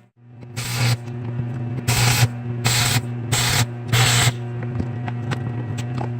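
Electric welder tack-welding chain links: about five short bursts of arc hiss, each a fraction of a second long, over a steady electrical hum.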